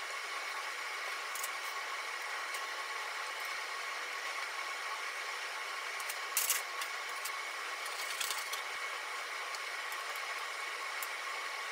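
Light clicks and taps of chopsticks and food being set into bento boxes, a cluster of them about six and a half seconds in and again around eight seconds, over a steady background hiss with a faint hum.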